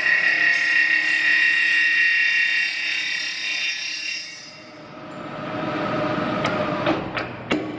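Vertical knee mill cutting metal: a steady high-pitched whine from the cutter for about four seconds, which then stops. A rougher noise follows, with several sharp clicks near the end.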